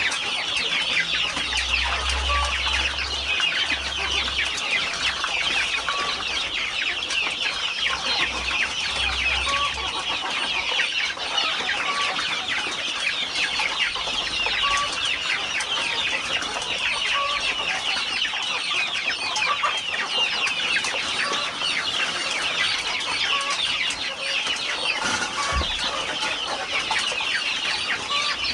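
A flock of chickens calling, with many short overlapping clucks and cheeps that go on without a break.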